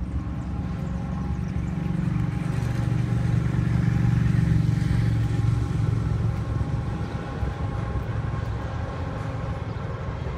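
Low engine hum that swells to its loudest about four to five seconds in and then eases off.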